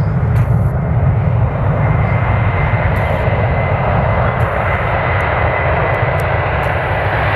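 Boeing 767 freighter's twin jet engines at high power as it rolls along the runway: loud, steady jet noise with a deep rumble and a thin fan whine that rises slightly about two seconds in.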